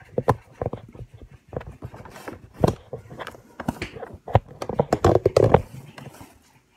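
Kitchen knife chopping food, with irregular knocks and scrapes of the blade against the cutting surface; the strokes are densest about five seconds in.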